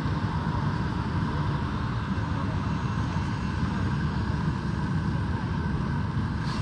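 Jet airliner running on the airport apron: a steady, unbroken noise with a faint steady whine.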